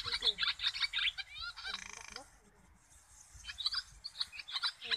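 A flock of swallows twittering: many quick, high chirps overlapping, with a short lull about halfway through before the chirping picks up again.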